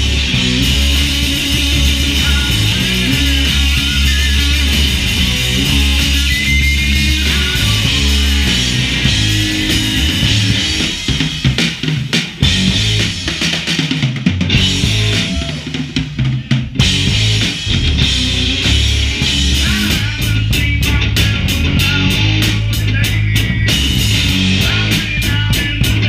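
Live rock band playing loud, with a drum kit driving under distorted electric guitar and bass. From about eleven to seventeen seconds in, the low end drops away and separate drum hits stand out, before the full band comes back in with a steady cymbal beat.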